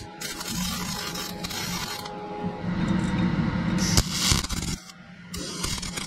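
MIG welder's arc crackling through a run of short tack welds, in stretches broken by short pauses, one of them about five seconds in, over a steady low hum.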